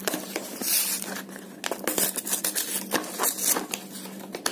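Paperboard Rogaine carton and its paper lining being handled and pulled open: dry rustling, scraping and crinkling with scattered small clicks, loudest in a rustle of paper about a second in.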